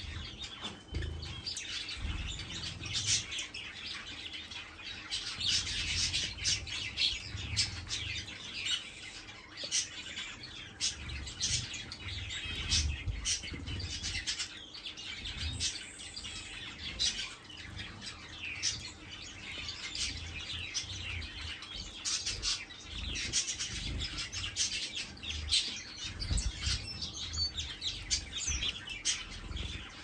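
Mixed flock of aviary finches chirping and twittering, many short high calls overlapping without a break, with occasional low bumps underneath.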